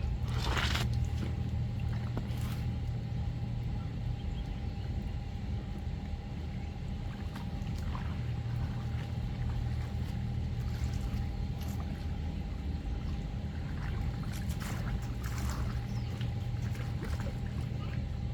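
An engine running steadily at an even, low pitch, with scattered light clicks and knocks over it.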